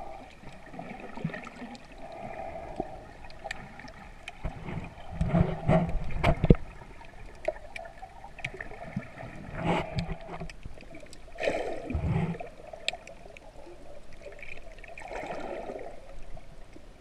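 Muffled underwater sound picked up by a submerged GoPro action camera: water sloshing and gurgling, with scattered small clicks and a few louder bubbly swells.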